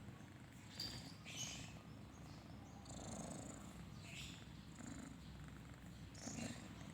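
A sleeping cat's faint snoring, a soft purr-like rumble, with a few breathy puffs over it.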